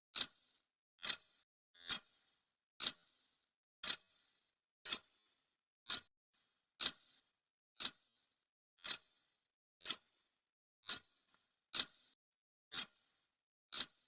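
Clock-tick sound effect: a single sharp tick about once a second, counting off the seconds of a countdown timer.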